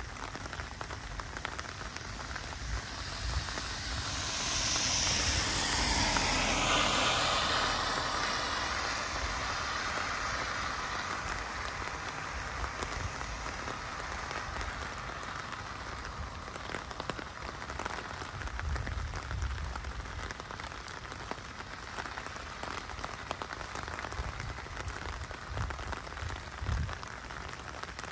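Steady rain falling on wet pavement and foliage. About four seconds in, a car passes on the wet road, its tyre hiss swelling and sweeping, then fading over several seconds.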